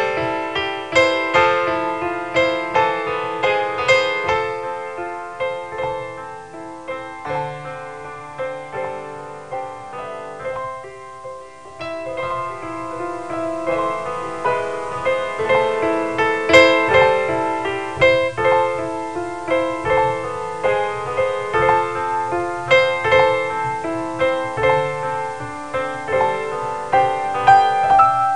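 Piano music, softer in the middle and swelling again after about twelve seconds.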